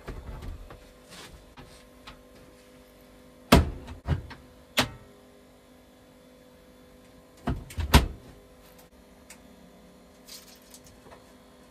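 Loud knocks and thumps on a hard surface: three a little over a second apart about three and a half seconds in, then two more close together about eight seconds in, over a faint steady hum.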